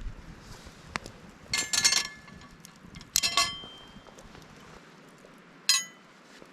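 Metal camp cookware and utensils clinking and clattering as they are handled, in three short bursts that ring briefly: one about a second and a half in, another about three seconds in, and a single sharp clink near the end.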